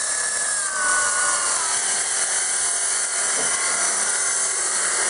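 Electric drill boring vertically into concrete with a long bit, its motor running steadily under load. The motor's pitch sags slightly about a second in as the bit bites.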